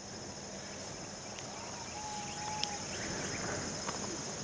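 Steady high-pitched chorus of crickets, with a few faint bird chirps and one short whistled bird note about two seconds in.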